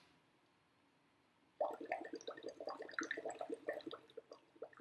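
Bubbling in a glass of water as a person exhales through a drinking straw into it, a breathing exercise. The faint stream of irregular bubble pops starts about a second and a half in.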